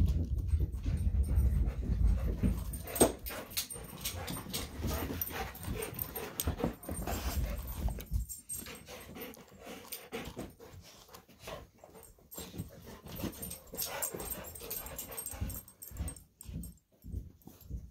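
Plastic layers of a Gigaminx (a 5x5 dodecahedron twisty puzzle) clicking and rattling as they are turned by hand, with a dog snuffling and breathing close to the microphone that is loudest in the first half.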